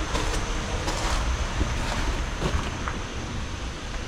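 Footsteps scuffing and crunching on a gritty, silt-covered floor, a handful of irregular steps, over a steady low rumble.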